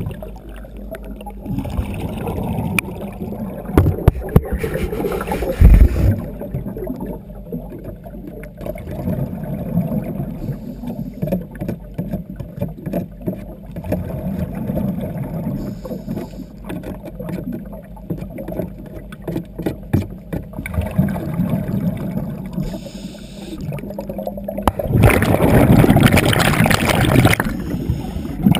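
Underwater sound of a diver's breathing: irregular gurgling of exhaled air bubbles, with a loud rush of bubbles lasting a couple of seconds near the end. A few low thumps sound around five seconds in.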